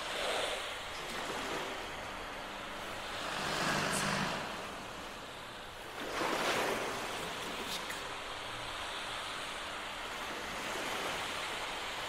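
Orchestra with live electronics playing rushing noise sounds rather than clear pitched notes. The noise swells and fades several times: the strongest swells come about four seconds in and, starting suddenly, about six seconds in. A faint low tone is held around the four-second swell.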